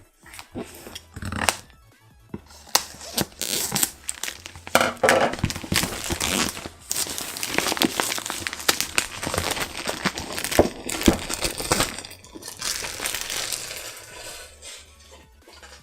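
Packaging crinkling and rustling in handling, with clicks and crackles as the box is unpacked, over background music.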